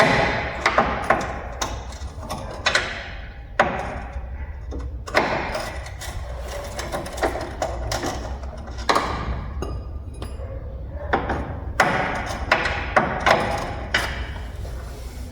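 Metal hand tools clinking and knocking against a pickup's steel suspension parts as a wrench is worked on the control-arm bolts: irregular sharp knocks, some ringing briefly.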